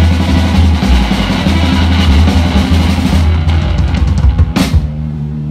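Live rockabilly band playing with upright bass, electric guitar and drum kit. About three seconds in the playing thins out, with a sharp drum hit about four and a half seconds in followed by a held low note.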